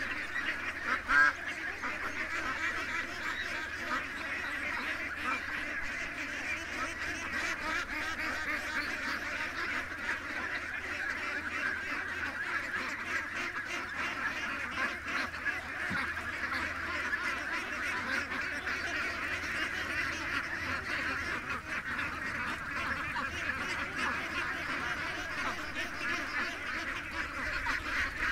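A flock of domestic ducks, Pekins among them, quacking and calling over one another in a continuous chatter, with one louder call about a second in.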